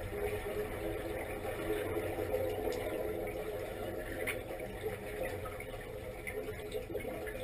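Steady mechanical hum heard underwater, several pitched tones held level over a low rumble, with a few faint ticks.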